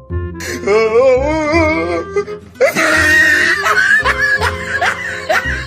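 Background music with a steady beat and a wavering melody line over it.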